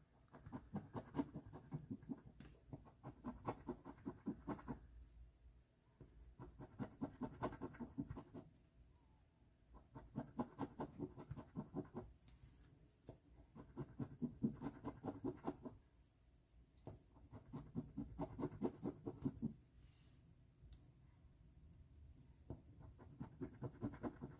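Michigan Lottery scratch-off ticket being scratched off in short bursts of rapid strokes, each burst about two seconds long with brief pauses between, as the numbers in the play area are uncovered.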